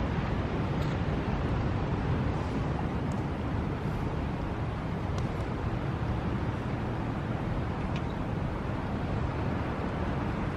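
Steady low rushing background noise outdoors, with a few faint light ticks.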